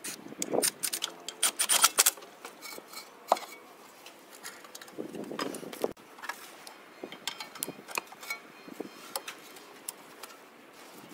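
Irregular metallic clinks, clicks and taps of hand tools and brake parts being handled at a front brake caliper. They come thickest in the first two seconds, with a short scraping rustle about five seconds in.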